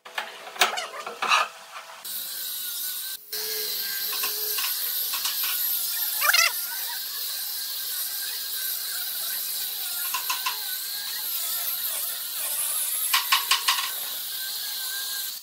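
A few sharp knocks as the wooden boards are shifted in their clamps, then, about two seconds in, an angle grinder fitted with a sanding disc running steadily with a high whine as it sands across the board surface.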